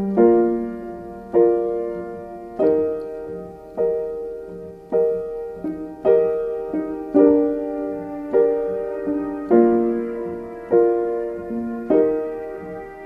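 Gentle piano music: chords struck in a steady slow pulse, about one every second and a bit, each ringing out and fading before the next.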